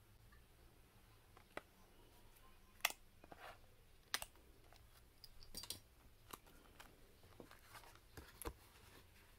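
Quiet handling of hole-punched sheets of paper and card, with about eight scattered light clicks and taps and a few soft paper rustles.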